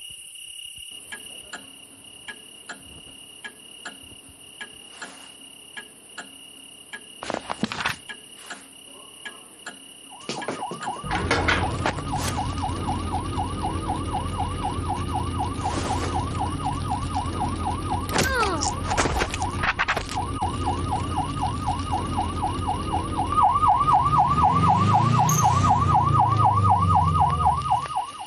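Emergency-vehicle siren in fast yelp mode, warbling rapidly up and down, starting about ten seconds in over a low rumble and getting louder near the end before cutting off. Faint regular ticks come before it.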